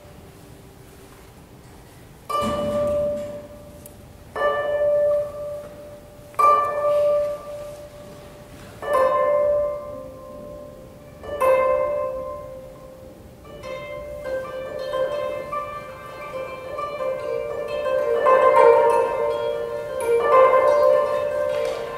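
Sitar and koto playing slowly. After a quiet start, single plucked notes on the same pitch ring out about every two seconds, five times. Then the plucking grows denser and louder near the end.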